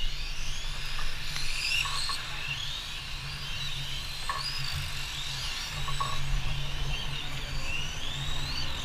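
Electric radio-controlled model F1 cars racing, their motors whining in a high pitch that rises and falls as they speed up and slow down, over a steady low hum.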